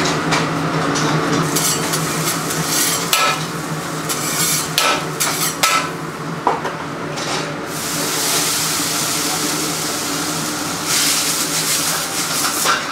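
Metal spatula scraping and clattering on a hot dosa griddle, then, a little past halfway, a long stretch of sizzling from food cooking on the griddle. A steady hum runs underneath.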